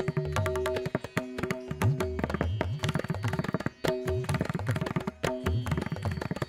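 Background music led by hand-drum percussion: fast, dense strikes with low drum notes that bend upward in pitch, over a few held tones.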